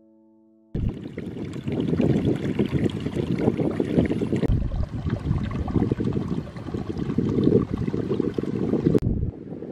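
Water running and trickling through a flooded rice paddy, with a heavy low rumble. It starts suddenly about a second in as the last held piano chord dies away, and changes abruptly twice, near the middle and near the end.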